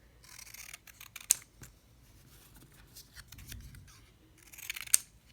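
A blade cutting through printed paper card in two short spells of scraping, each ending in a sharp click, about a second in and again near the end.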